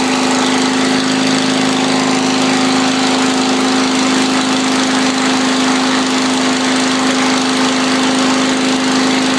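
Small single-cylinder-style engine of a KHD-badged riding garden tractor running at a steady speed: an even, loud hum that holds one pitch throughout.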